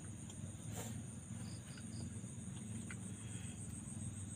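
Crickets keeping up a steady high-pitched chorus over a low steady hum, with one sharp click just under a second in.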